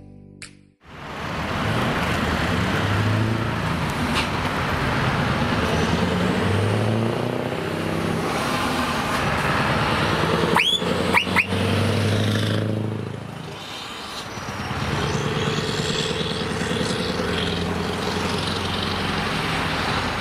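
Scania R500's V8 diesel running loud through an open exhaust pipe as the truck and trailer pull through a junction and away, the engine note rising and falling with load. A few brief sharp sounds about halfway, and a short dip in loudness a little later.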